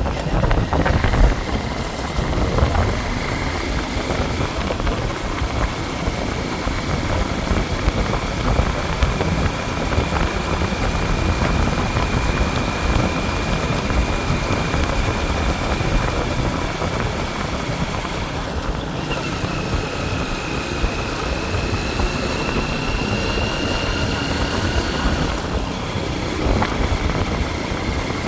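A motor running steadily, with heavy low rumble and a thin constant whine that steps up in pitch twice.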